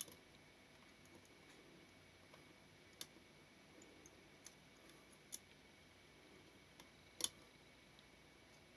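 Tweezers and small metal parts of a camera leaf shutter mechanism giving off scattered faint, sharp clicks and ticks against near silence, about six in all, the loudest a quick double click about seven seconds in.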